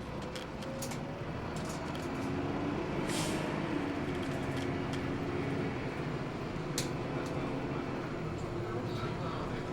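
Hino Blue Ribbon II city bus heard from inside the cabin, its diesel engine pulling and gathering speed, the engine note rising over the first few seconds and then holding steady. A short hiss of air comes about three seconds in, and small rattles and clicks from the cabin sound throughout.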